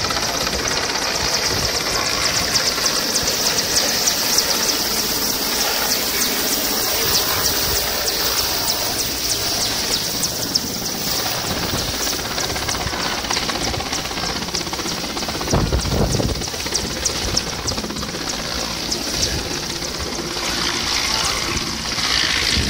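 Mil Mi-8-family twin-turbine transport helicopter running steadily with a fast rotor chop and turbine whine as it hovers low, descends and settles onto the ground. About two-thirds through, a gust of rumbling wind buffets the microphone.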